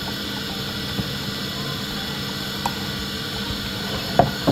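Wooden spoon stirring a thin mixture of cornmeal, oats and milk in a glass measuring jug, with a few light taps of the spoon against the glass, over a steady background hum.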